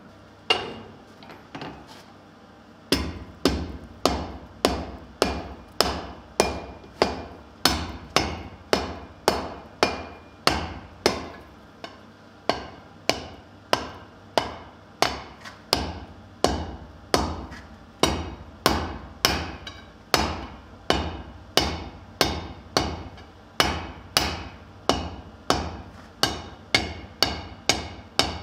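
Blacksmith's hand hammer striking a red-hot steel bar on an anvil. One blow comes first, then after a short pause a steady run of blows at about two a second, each with a brief metallic ring.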